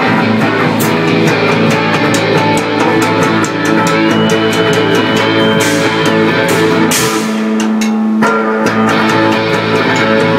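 Live rock band playing loud: electric guitars, bass guitar and a drum kit with steady cymbal hits, all coming in together abruptly at the very start.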